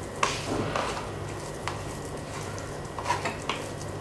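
Fingers mixing spice powder and water into a masala paste on a plastic plate: a few soft scrapes and small taps against the plate, over a low steady hum.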